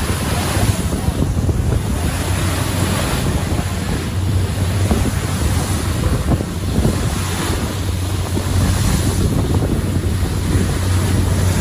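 Wind buffeting the microphone over the rushing wash of the sea along a moving ferry's hull, swelling and easing every second or two, with a steady low drone of the ferry's engines underneath.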